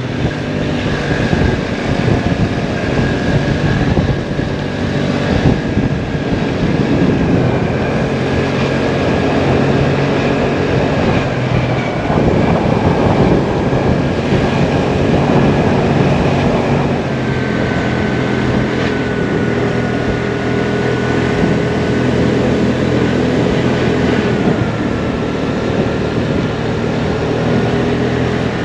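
Vespa scooter's engine running steadily while riding, with road and wind noise.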